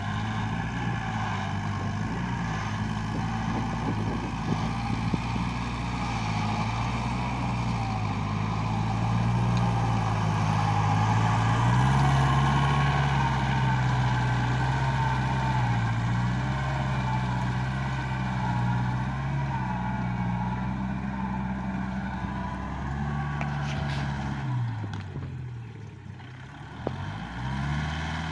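Compact tractor's diesel engine running under load while pulling a rotary tiller through dry paddy soil. The engine note steps up about twelve seconds in, then near the end falls away sharply and climbs back as the revs drop and recover.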